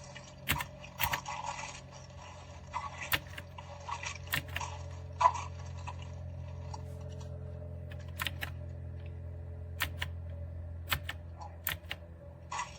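Scattered sharp clicks at an uneven pace of about one or two a second, over a steady low hum.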